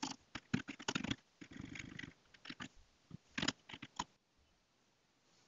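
Typing on a computer keyboard: a quick, uneven run of keystrokes that stops about four seconds in.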